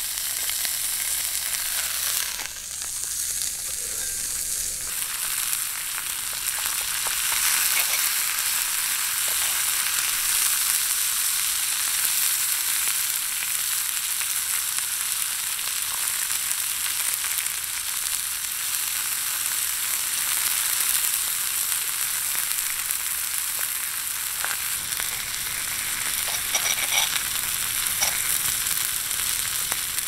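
Steak and corn sizzling steadily in a hot iron frying pan, an even frying hiss with a few faint pops.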